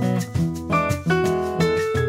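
Background instrumental music: a quick melody of plucked, guitar-like notes over a steady bass line.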